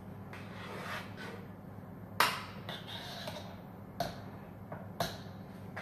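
Metal offset spatula scraping through sponge batter on a metal baking tray, with three sharp metallic knocks against the tray, the loudest about two seconds in.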